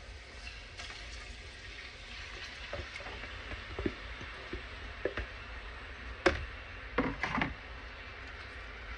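Raw chicken pieces sizzling in hot olive oil in a skillet, a steady hiss. Short knocks and scrapes of the spatula and bowl against the pan come through it, the sharpest a little past the middle and a few more just after.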